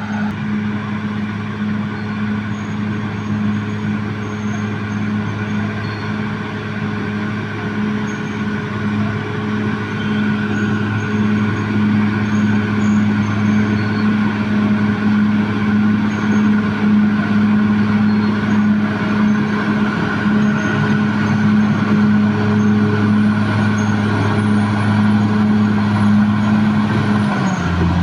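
Caterpillar D6R XL bulldozer's diesel engine running at a steady pitch, its pitch falling right at the end as the engine slows.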